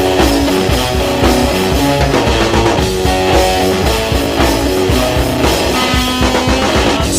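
Rock music with electric guitar and a drum kit beat.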